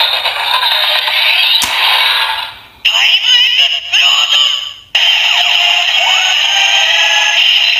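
Bandai DX Beyond Driver toy belt playing its finisher sequence through its small, tinny speaker: electronic music and a synthesized announcer voice calling out "Time Explosion!". A sharp click comes about one and a half seconds in, and the sound briefly drops away and restarts twice.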